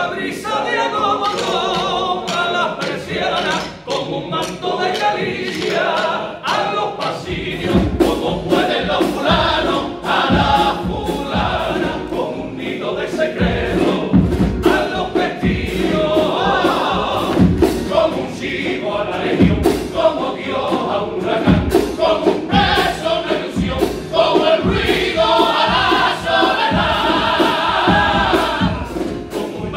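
Male carnival comparsa chorus singing a pasodoble in harmony, accompanied by Spanish guitars. A strong regular beat joins about seven seconds in, and the voices swell near the end.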